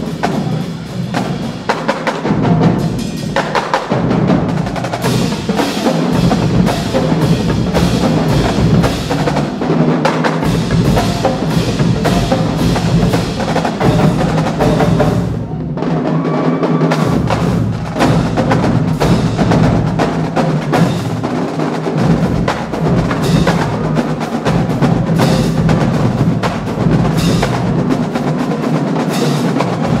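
Marching band drumline playing loud and unbroken: snare drums, multi-tenor drums, marching bass drums and hand cymbals together, thinning briefly about halfway through.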